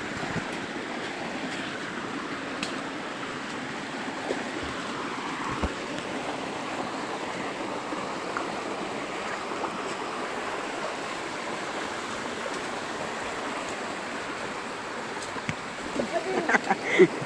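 Steady rushing of water from a waterfall and stream, with brief voices near the end.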